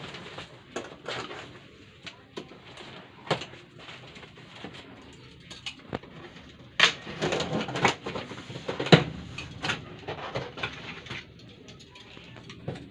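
Handling of an unboxed appliance and its packaging: rustling with scattered clicks and knocks, loudest about seven and nine seconds in.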